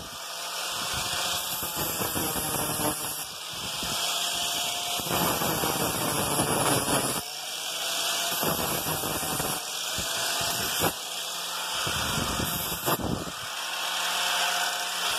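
Angle grinder running with a 120-grit flap disc, sanding the rusty forged-steel head of an old sledgehammer. The grinding noise swells and dips every few seconds as the disc bites and eases off, over the motor's whine.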